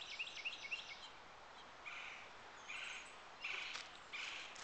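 A bird calling: a quick run of chirps about four or five a second that stops within the first second, then short buzzy notes repeated roughly once a second.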